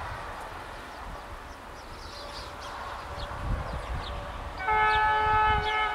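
Horn of an approaching CFR diesel locomotive sounds a loud chord of several tones about four and a half seconds in, held for over a second, over birds chirping.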